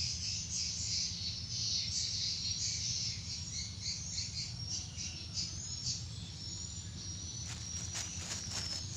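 Insects chirping in a high-pitched chorus over a steady low hum, with a few sharp clicks near the end.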